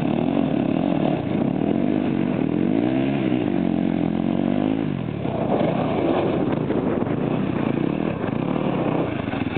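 Sport quad (ATV) engine running as it is ridden, the revs climbing and dropping once, then settling into a slow, even beat near the end.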